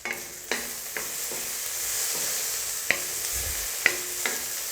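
Potato pieces sizzling in hot oil in a kadai, with a steady frying hiss, and a spatula knocking and scraping against the pan a few times as they are stirred.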